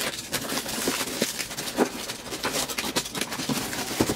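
Tape-wrapped plastic shipping mailer being torn open by hand, with uneven crackling and rustling and many sharp little clicks.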